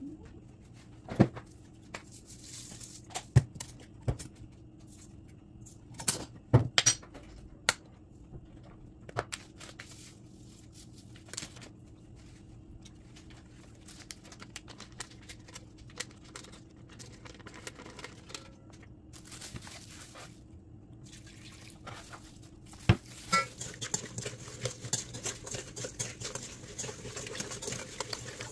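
Scattered clinks and knocks on a stainless-steel mixing bowl as marinade ingredients go in, with some liquid being poured. Later comes a continuous wet rustling of hands mixing the marinade in the bowl. A low steady hum lies underneath.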